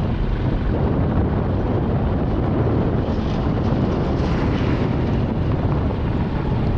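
Steady, loud road-traffic rumble mixed with wind buffeting the microphone.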